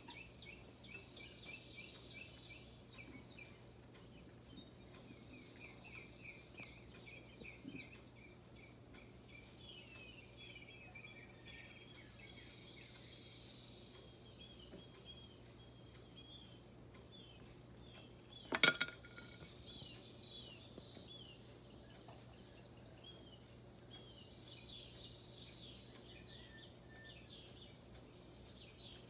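Faint insect chirping in quick runs of short repeated notes, with spells of a higher hiss-like buzz now and then. About two-thirds of the way through comes a single sharp clink of glass that rings briefly.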